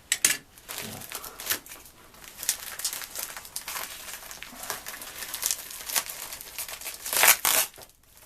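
Packaging of a postal parcel being crinkled and torn open by hand: irregular crackling and rustling, with a louder burst of crinkling near the end.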